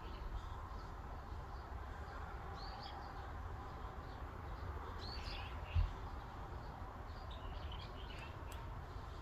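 Forest ambience: a steady breeze rumble under scattered short, high bird chirps and calls that come in a few clusters. A brief low thump, the loudest sound, comes a little past halfway.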